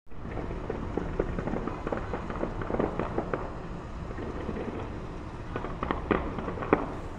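Fireworks going off in a rapid string of pops and crackles, with a few louder bangs; the sharpest two come near the end.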